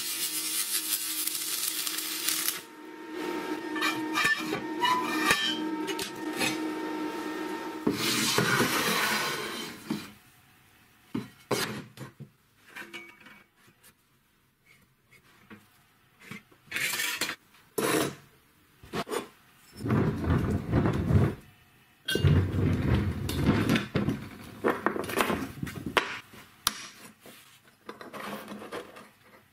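Electric arc welding crackles and hisses for about the first two and a half seconds, then stops. Bench metalwork follows: steel pieces clink, knock and are set down, with several loud stretches of metal rubbing or scraping and a quiet spell of pencil marking in the middle.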